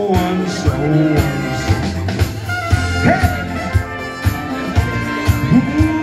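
Pop backing track playing an instrumental passage: a bright, brass-like lead melody over a steady beat of about two kick-drum pulses a second.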